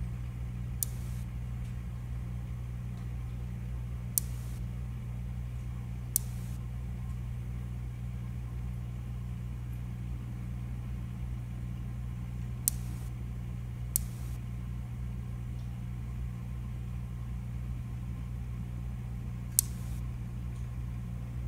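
Pistol shrimp snapping its claw: six sharp single cracks at irregular intervals, two of them close together about two-thirds of the way through, over the steady low hum of aquarium equipment.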